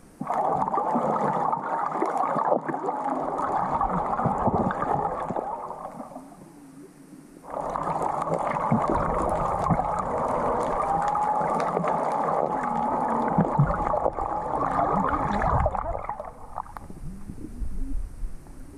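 Underwater rushing and crackling picked up by a submerged camera while snorkeling. It cuts in suddenly, fades out after about six seconds, then cuts in again a second or so later and dies down near the end.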